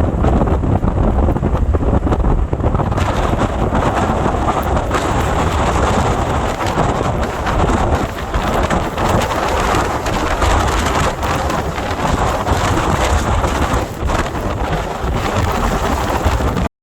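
Hurricane-force wind gusts and driving rain, the wind buffeting the microphone with a heavy low rumble. The rush of rain grows louder about three seconds in.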